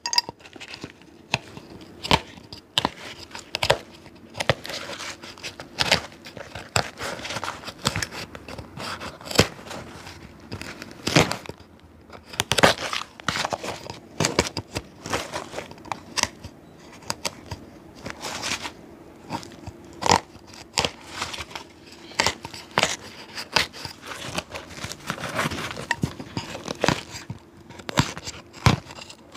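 A cobbler's hand tools working on a dirty shoe: an irregular run of sharp clicks and short scrapes against leather and sole, with no steady rhythm.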